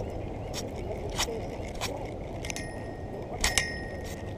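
Spinning reel and fishing tackle handled close up: a string of light clicks about every half second, with two sharper metallic clinks that ring briefly about two and a half and three and a half seconds in, over a steady low rush.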